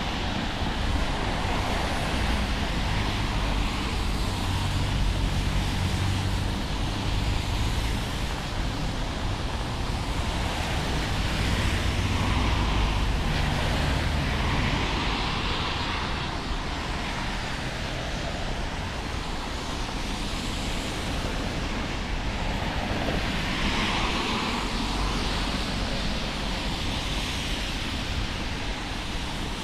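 City street traffic going by. A vehicle's low engine hum is prominent through the first half and fades about halfway through.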